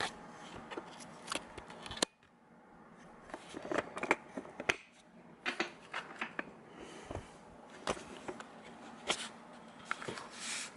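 Handling noise from picking up a camera and moving small lock parts: scattered light clicks and taps, with a sharper click about two seconds in.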